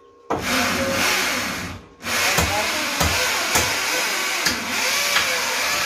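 Electric arc welding on steel angle bars: a loud, steady crackling hiss from the arc, which catches just after the start, breaks off briefly about two seconds in, then strikes again.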